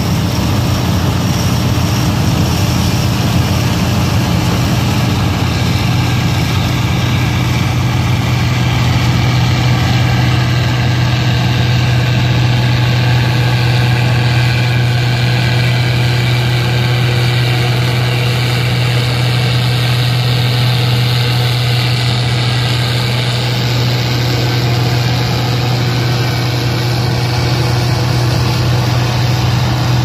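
Case IH combine harvesters running while harvesting soybeans: a loud, steady engine hum.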